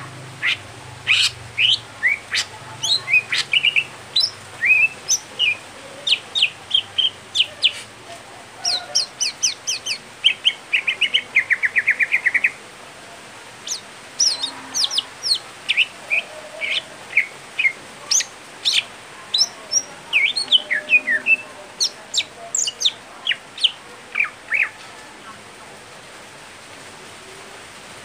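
Caged male greater green leafbird (cucak hijau) singing a string of sharp, varied chirps and whistles. About ten seconds in it gives a fast, even trill lasting two seconds, and the notes thin out near the end.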